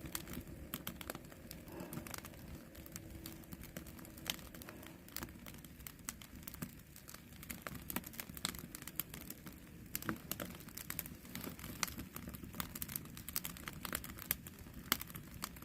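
Wood campfire crackling: a steady run of irregular snaps and pops from the burning firewood, a few of them sharper than the rest.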